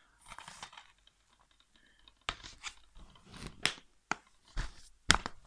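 Handling noises from plastic DVD cases being put down and picked up: a brief rustle, then a series of sharp clicks and knocks, the loudest near the end.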